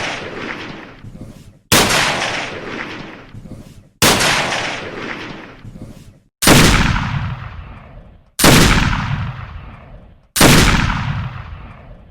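Gunshots fired singly, five of them about two seconds apart, each a sharp bang with a long echoing tail that dies away before the next.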